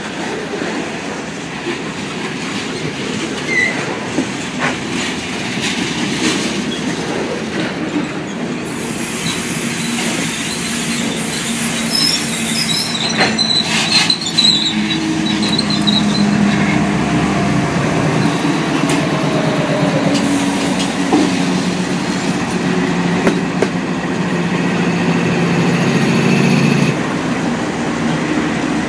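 Freight train passing close by on a bridge: steel wheels rumbling and clacking over the rail joints, with a high-pitched wheel squeal about a third of the way through. In the second half, the train's diesel locomotives roll past with a steady engine drone that grows louder.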